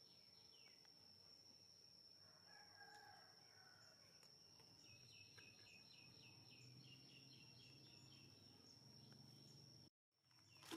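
Faint outdoor background. A distant rooster crows once, about two seconds in, and a run of quick repeated bird chirps follows, all over a steady high whine. The sound drops out just before the end.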